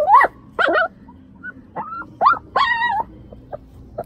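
A stray puppy crying from inside a concrete drain pipe: a string of about six short, high whimpering yelps that rise and fall in pitch, a distress call from a pup stuck in the pipe.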